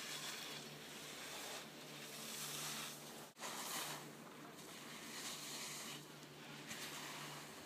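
Faint rushing hiss of wind and skis sliding over snow, swelling and fading every second or two, with a brief dropout about a third of the way through.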